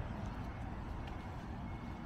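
Traffic on a city street: a steady rumble of passing cars and tyres.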